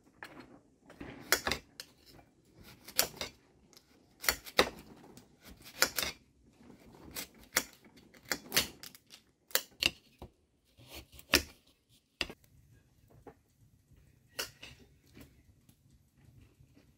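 Kitchen knife cutting a crisp, raw pink-skinned root vegetable held in the hand, a sharp crunching click with each cut, about one every second or so at an irregular pace.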